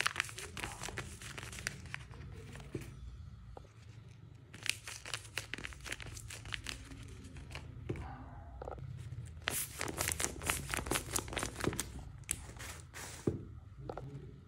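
Crinkling and crackling of tape-covered paper squishies being squeezed and handled, in bursts of crackles with short pauses between.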